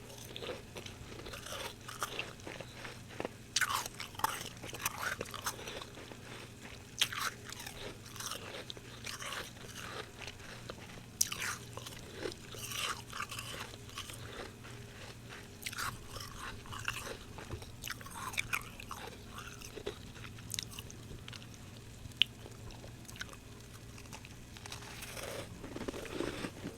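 Close-miked biting and chewing of fresh humidifier frost, with irregular crisp crunches.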